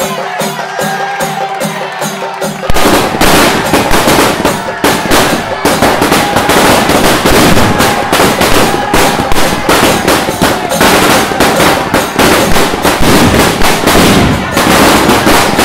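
Music with a drum beat, then about three seconds in a long string of firecrackers starts going off, a rapid, continuous crackle of bangs that keeps on.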